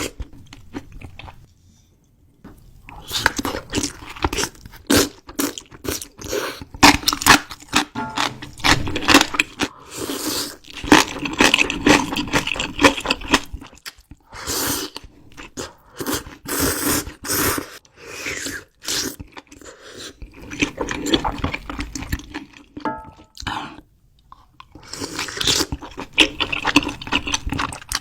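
A person eating: chewing and crunching food in long runs, with short pauses shortly after the start and again about three-quarters through.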